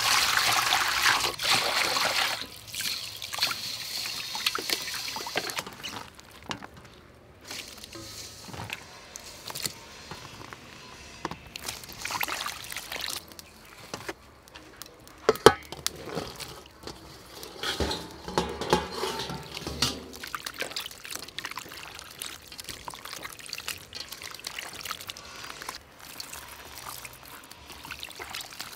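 Water poured from a jug into a metal bowl, loudest for the first two or three seconds. After that come quieter, intermittent splashes and sloshing as hands work through the tiny frogs in the water, with a sharp click about halfway through.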